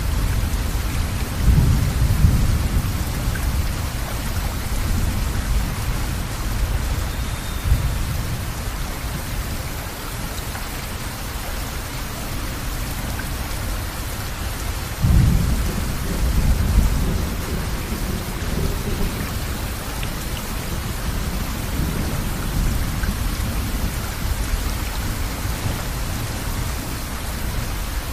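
Steady rain with rolling thunder: a low rumble about two seconds in, and a stronger one that starts suddenly about halfway through and rolls on for several seconds.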